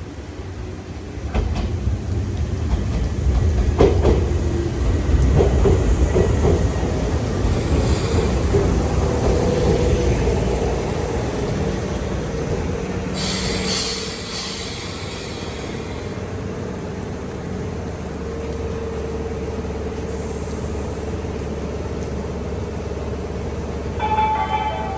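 Three-car local electric train pulling into the platform: a heavy rumble swells about a second in, with wheels clicking over rail joints and a steady mid-pitched whine. A brief hiss comes about halfway through, then a steadier hum, and a short electronic chime starts near the end.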